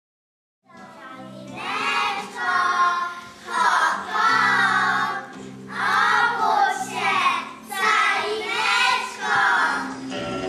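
A group of young children singing together in unison, in four phrases with short breaks between them, over a steady, sustained instrumental accompaniment; it starts just under a second in.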